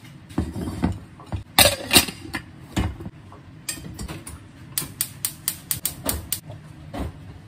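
A saucepan knocked and set down on a gas hob's grate, then the hob's spark igniter ticking rapidly, about five clicks a second, as the burner is lit.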